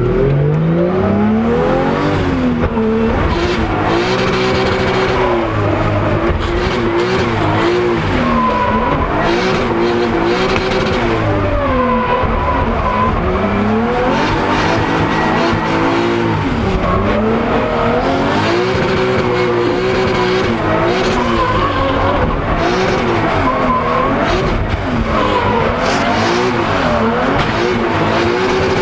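Drift car's engine revving up and down again and again under throttle through a run, with tyres squealing as the car slides, heard from inside the cabin.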